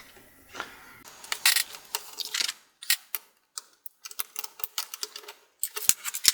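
Small Phillips screwdriver working a tiny screw out of a laptop's metal LCD frame: a run of light, irregular clicks with a few short scrapes.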